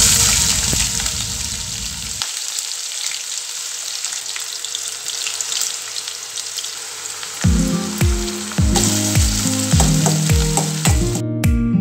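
Chopped onions sizzling in hot oil in a stainless-steel kadai, starting the moment they are tipped in and going on as they are stirred with a spoon. Background music with a regular beat comes in after about seven seconds.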